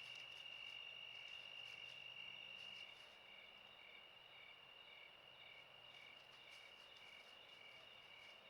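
Insects, crickets or similar, calling: one steady high trill, with a second caller chirping about twice a second just beneath it. The sound is faint.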